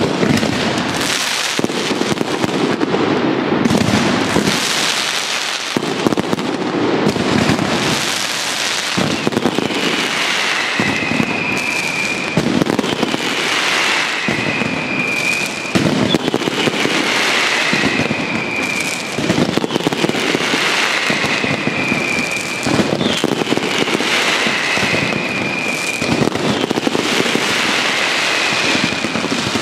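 Aerial fireworks firing continuously: dense crackling and banging with no break. From about a third of the way in, a whistle that falls slightly in pitch comes back about every two seconds.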